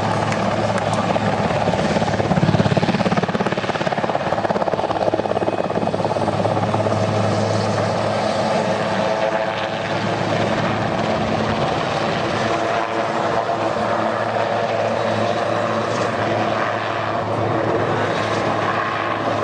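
Large military helicopter flying low: steady rotor and turbine noise, loudest about two and a half seconds in.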